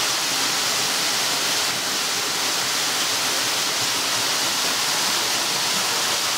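Waterfall: the steady hiss of falling water.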